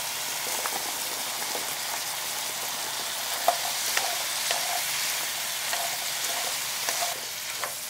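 Beef and cubed radish sizzling in sesame oil in a frying pan while being stir-fried with chopsticks, which give a few light clicks against the pan.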